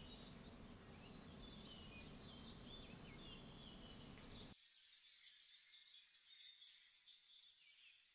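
Near silence: a faint room hiss that cuts off abruptly about four and a half seconds in, with faint, high, short chirps throughout.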